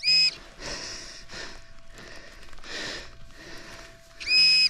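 Metal detector giving two high target beeps about four seconds apart, each a clear pitched tone signalling metal under the coil, with a faint steady tone underneath. Soft hissing puffs fall between the beeps.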